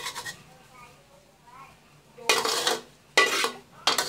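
A metal spoon scraping and clinking against a ceramic plate of fried rice, in three short scrapes in the second half, the first the longest.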